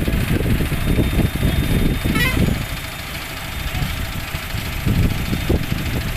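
Diesel engines of mobile cranes running, a steady low rumble, with a brief shrill wavering sound about two seconds in.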